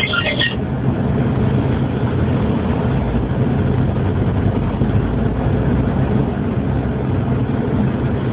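Steady low rumble with a constant hum and noise, like an idling engine, carried over a telephone line with no one speaking.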